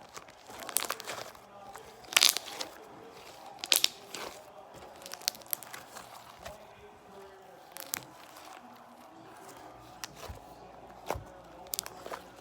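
Slime being squeezed and pressed by hand, giving irregular crackling pops and clicks, the loudest about two and three-and-a-half seconds in.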